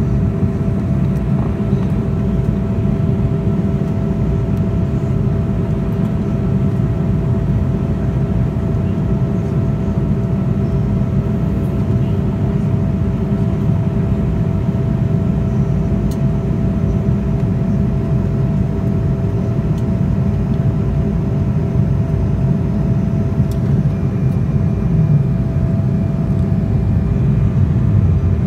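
Steady cabin noise of an Embraer 190 jet on approach, heard inside the cabin by a window over the wing: the even low rush of its two GE CF34-10E turbofans and the airflow, with a couple of steady hums running through it. A faint high tone joins near the end.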